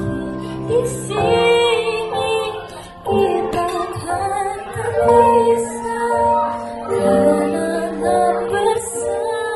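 A young girl singing into a microphone over instrumental backing music, holding long notes, amplified through a PA system.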